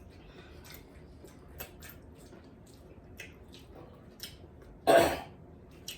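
Wet eating sounds from a seafood boil: scattered lip smacks and chewing clicks, with one louder burst of noise about five seconds in.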